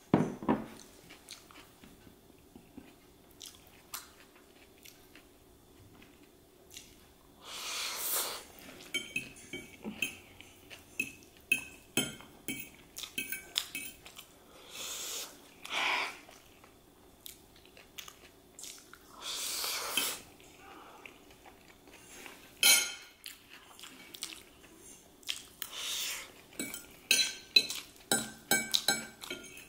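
Metal fork clinking and scraping on a ceramic plate as chow mein noodles are twirled up, with chewing in between. A knock at the very start as a drinking glass is set down on the table, and a quick run of clinks near the end.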